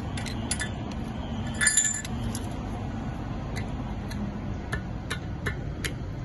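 Sharp metallic clinks and taps of a hand tool and a chain hook against a steel grating manhole cover while the lifting point is cleared of dirt so the lifter's hooks can be hooked in. The clinks are irregular, with a louder cluster about two seconds in.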